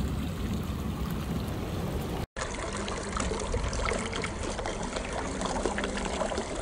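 Muddy flash-flood water rushing and churning over stones down a gully after heavy rain, a steady rush of water. The sound cuts out for an instant about two seconds in, then goes on.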